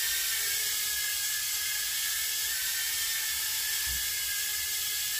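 Micro quadcopter's four small motors and propellers whining steadily as it hovers, the battery nearly spent just before it lands on its own.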